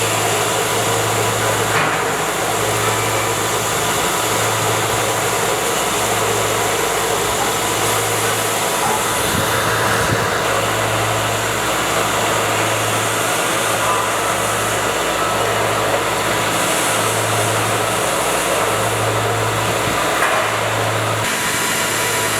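CNC ceramic tile cutting machine with two groups of four saw blades running: a steady, loud whirring noise, with a low hum that pulses on and off about every second and a half.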